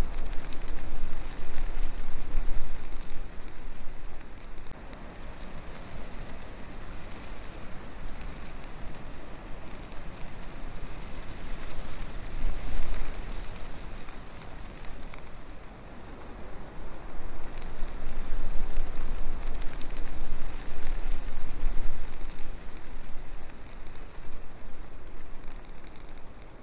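Wind rushing over the microphone of a camera on a quadcopter in flight: a steady hiss with a strong low rumble, swelling in the first few seconds, easing off through the middle and rising again later.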